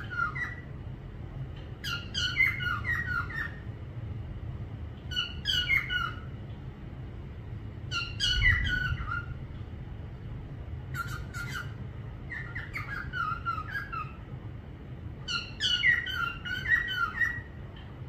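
A parrot calling in short bursts of quick, squawky chirps, a burst every two to three seconds, over a steady low hum.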